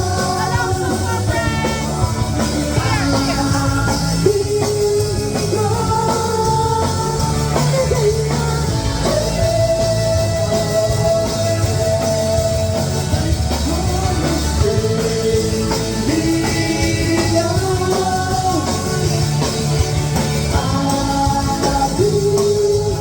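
Rock music with a sung lead vocal, the melody held in long wavering notes over a steady bass and drum beat.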